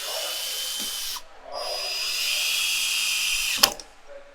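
Power drill running in two bursts with a whine, the first about a second long and the second about two seconds, while a bottle opener is being fastened to the wall; the second burst ends in a sharp click.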